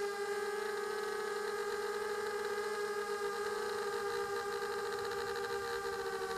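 Electric motors and propellers of a small RC drone flying low, heard from its onboard camera: a steady whine of several pitches that drift slightly as the throttle changes.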